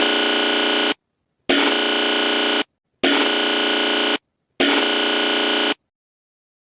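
Four harsh electronic alarm buzzes, each a little over a second long with short gaps between them, sounding as an emergency alert tone.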